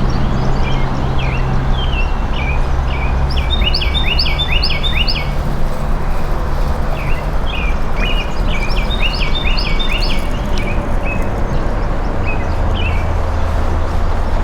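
A songbird singing quick, repeated chirping phrases in several runs, the busiest early on and again midway, over a steady low rumble and hiss.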